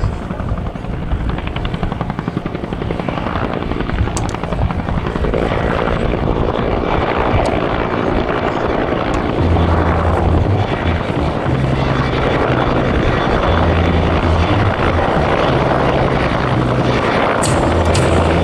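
Bell UH-1N Twin Huey helicopter in flight, its two-blade main rotor beating steadily with the engines running, growing louder about halfway through.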